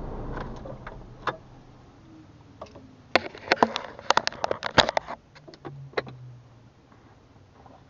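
A hand handling the windscreen camera: a run of sharp clicks and taps, densest about three to five seconds in, with a few more about a second later. A low hum fades out in the first second.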